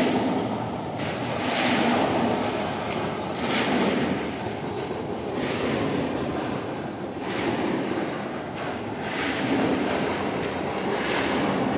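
Rotary drum onion grader running, onions tumbling and rolling over its steel-rod drum and sliding down the chutes into crates: a continuous rattling rumble that swells and eases every couple of seconds.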